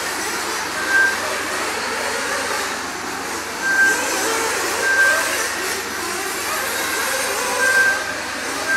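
Several nitro-powered RC off-road buggies and truggies racing, their small glow engines buzzing at shifting pitch. Short high beeps come in every second or few, at uneven gaps.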